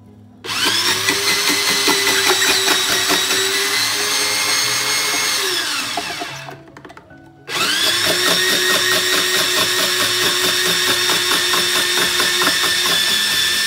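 Moulinex Fresh Express electric slicer-grater motor slicing leeks: a steady whine with a fast rattle, labouring under the load of leek pressed through its slicing cone. It winds down with a falling pitch about six seconds in, then starts up again a second or so later.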